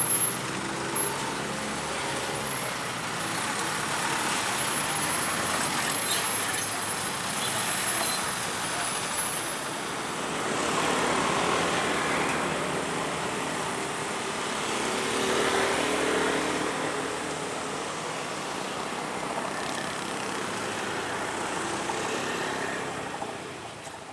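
Road traffic passing: engine and tyre noise of buses and other vehicles, swelling as vehicles go by about ten seconds in and again around sixteen seconds.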